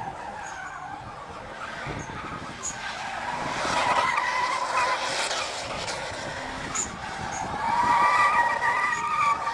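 Toyota Altezza drift car sliding, with its engine revving and tyres squealing. It gets louder twice: about four seconds in, and again near the end.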